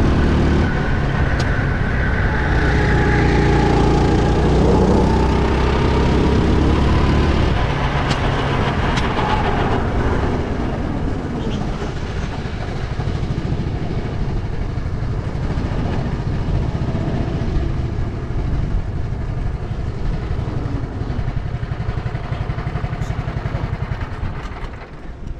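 Go-kart engine heard from on board the kart: it runs hard with a steady drone for the first seven or so seconds, then is throttled back and runs lower and quieter as the kart slows into the pit lane, dropping off near the end.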